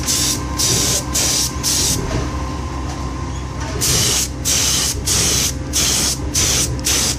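Air spray gun spraying boron nitride release coating onto a heated aluminium die cavity in short hissing bursts, about a dozen in all, with a pause of about two seconds in the middle, over a steady low rumble.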